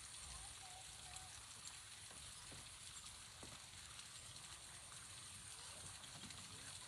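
Near silence: faint outdoor ambience with a low rumble and a faint, steady high-pitched hiss.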